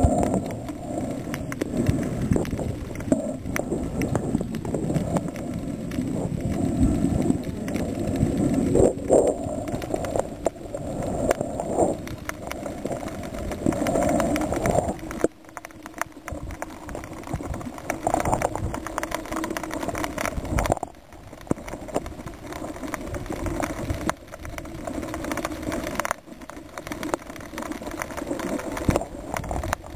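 Muffled underwater noise picked up by a submerged camera, a dense low rumble with irregular crackling clicks and knocks that drops off suddenly a few times.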